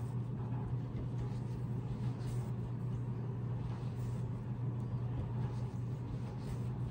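A steady low machine hum, with faint soft rustles as wool yarn is pulled and tied into the pile of a hand-knotted rug.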